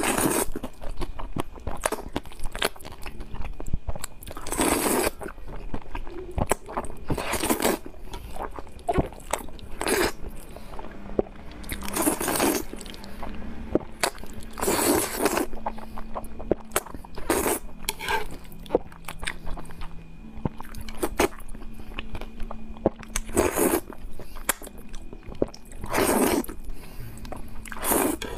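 Close-miked eating: saucy jajangmyeon noodles slurped up in loud wet bursts every few seconds, with smacking and chewing clicks in between.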